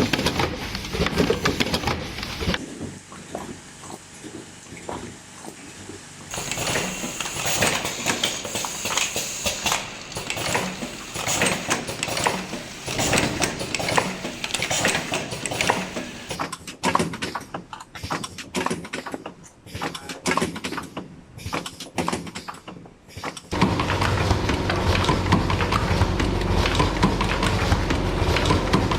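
Automatic cartoning machine running: rapid, irregular mechanical clicks and knocks from its feeding and carton-folding parts. Near the end this gives way to a steady low machine hum.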